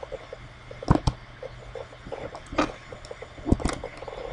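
A handful of sharp computer mouse and keyboard clicks, a pair about a second in and more near the end, over a faint low hum.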